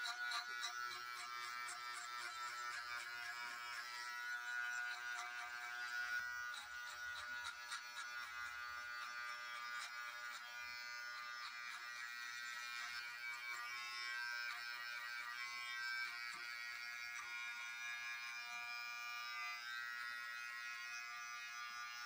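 Cordless electric hair clipper buzzing steadily as it cuts a fade into short hair on the back and side of the head.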